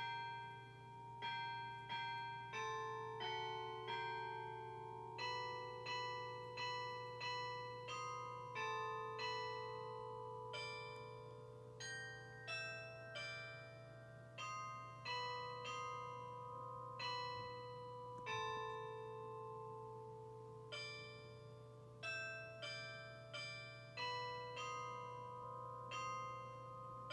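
Schulmerich Basilican Mk III DSP electronic carillon playing a hymn tune on its auto bell player in the TrueCast Real Bell Voice: sampled cast bells struck one note after another, about three notes every two seconds. Each note rings on and overlaps the next, with a longer held note at a phrase end about two-thirds of the way through.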